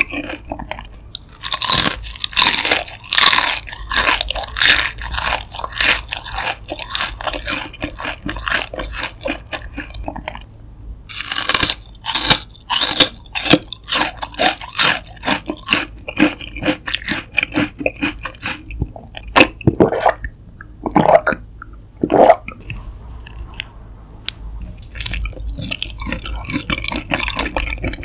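Close-miked crunching and chewing of deep-fried shrimp heads: runs of crisp crunches with short pauses between mouthfuls.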